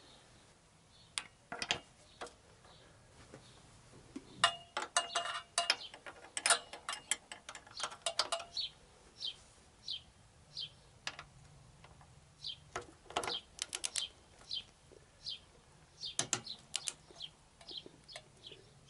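Ratchet of a click-type torque wrench clicking in quick runs as an engine mounting bolt is tightened toward its 48 N·m setting. The runs are densest in the first half. A short high chirp repeats once or twice a second behind it.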